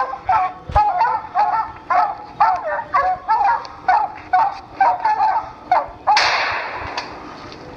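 Bear hounds baying at a treed bear, short rising-and-falling barks about twice a second. About six seconds in, a sudden loud burst of noise cuts in and fades away over about a second and a half.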